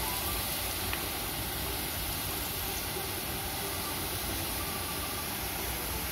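Steady hiss of a water spray washing mud off a plastic toy excavator.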